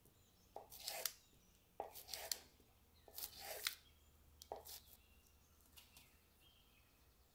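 Table knife slicing down through a stick of butter onto its paper wrapper on a wooden board: four short scraping cuts at an even pace, each about half a second long, over the first five seconds.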